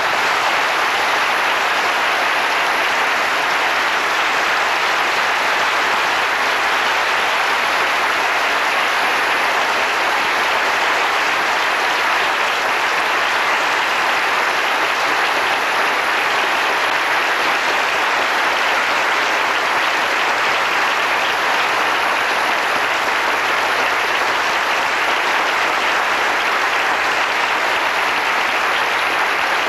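A large audience applauding steadily in a standing ovation.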